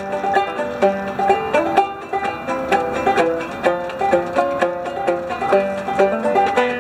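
Five-string open-back parlor banjo, a Charles A. Dobson, played clawhammer style: a steady, rhythmic tune of plucked notes over a ringing drone string.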